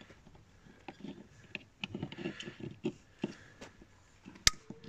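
Small plastic parts handled with light clicks and rustles, then one sharp snap about four and a half seconds in as the black plastic cover of an LED door courtesy light clips onto its clear lens housing.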